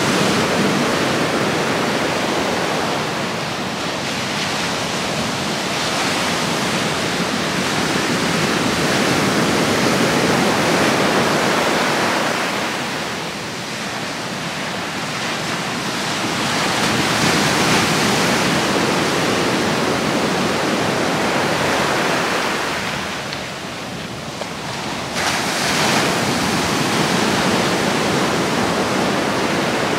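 Sea surf breaking on the beach: a steady rush of waves that swells and eases, dipping about halfway through and again near the end.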